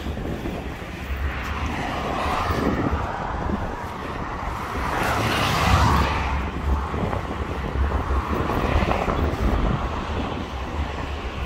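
Wind rumbling on the microphone over a steady outdoor rushing noise that swells to a peak about halfway through and then eases off.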